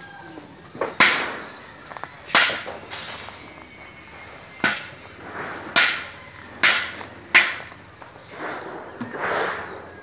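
A series of sharp cracks or knocks, about eight spread irregularly over ten seconds with some in quick pairs, each trailing off in a short hiss, with softer swishing swells in between.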